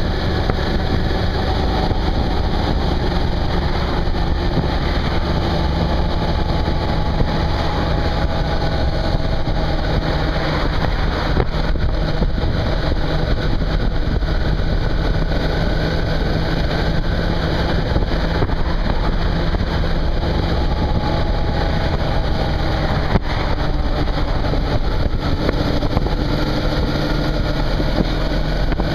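Suzuki V-Strom 650's V-twin engine running at cruising speed on the open road, mixed with steady wind and road noise. Its note drifts gently up and down with speed.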